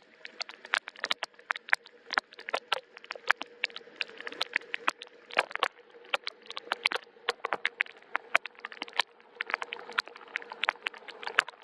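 Soft rain, heard as many individual drops ticking sharply and irregularly, several a second, over a faint hiss.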